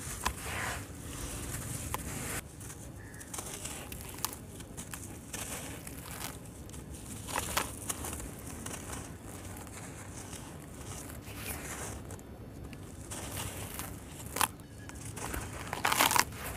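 Damp sand-cement and dirt chunks being squeezed and crumbled by hand in a plastic tub: gritty, grainy crunching in irregular bursts, loudest just before the end.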